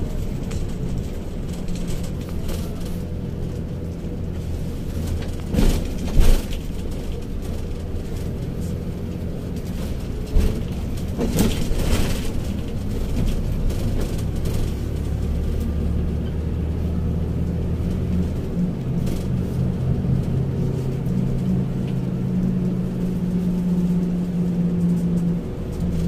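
Bus engine and road noise heard inside the moving bus: a steady low drone whose pitch steps up and down as the bus speeds up and slows. A few brief louder noises break through, the loudest about six seconds in.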